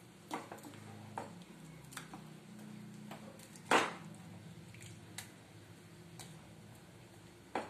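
Black plastic spoon stirring a thick, watery curry mixture in a kadai, with irregular knocks and scrapes of the spoon against the pan about once a second; the loudest knock comes about halfway through.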